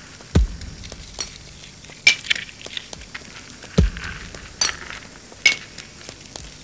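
Hard objects striking: a few sharp clinks with a short ring and two deep thuds, spaced irregularly about a second or more apart.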